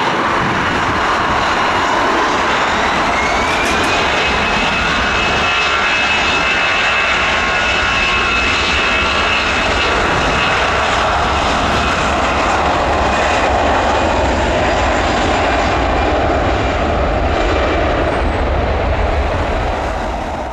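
Airliner engines running loud, a steady roar with a high whine that rises about three seconds in and then holds. The sound fades near the end.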